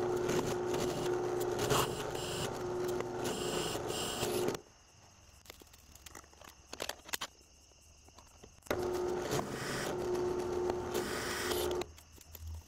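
Drill press running as a twist bit drills into a steel plate: a steady hum with cutting noise that stops about four and a half seconds in. After a quieter gap with a few clicks it starts again for about three seconds to drill the next hole, stopping shortly before the end.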